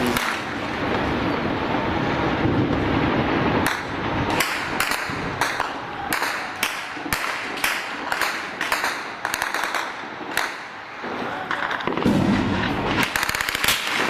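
Gunfire: a run of sharp shots, about two a second, beginning about four seconds in and stopping near the eleventh second, after a few seconds of steady noisy rumble.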